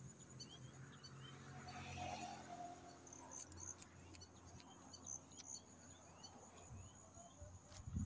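Faint small high chirps repeating about twice a second, from a small animal calling in the reeds, over a low steady rumble.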